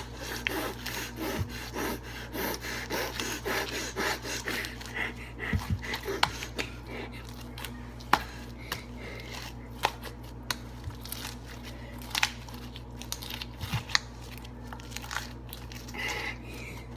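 Green slime being stretched and ripped apart by hand, with irregular sticky crackles and pops.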